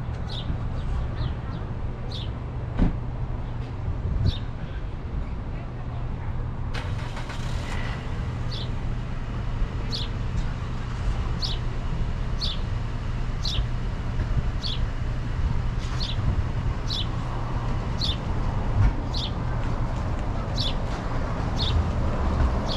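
Motorcycle engine running steadily with a low rumble, with a short high chirp repeating about every second and a half.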